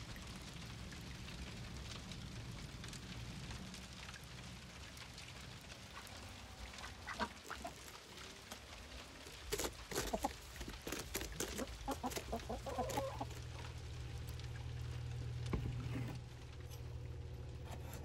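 Chickens clucking while pecking at a red cabbage, with a cluster of sharp pecking taps and short clucks midway.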